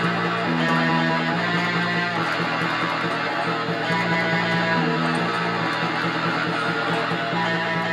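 Electric guitar playing a repeating progression of held chords.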